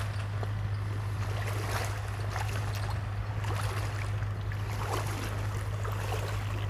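Excavator's diesel engine running steadily as a low hum, with stream water trickling and gurgling.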